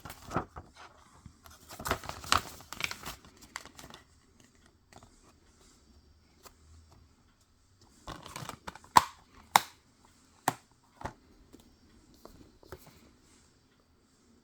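Blu-ray packaging being unwrapped and handled: plastic crinkling and tearing in two spells, the second broken by several sharp clicks.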